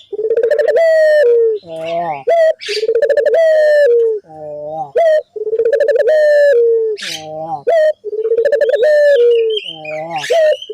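Puter (ringneck dove) cooing. A short rising note leads into a long, slightly falling coo, and the two-part phrase repeats about every two and a half seconds, four times. This is a 'gacor' lure call, played to set other puter doves calling.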